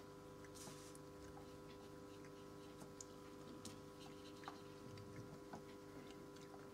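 Near silence: a steady faint hum with scattered faint small ticks and scratches from a fine paintbrush working on paper.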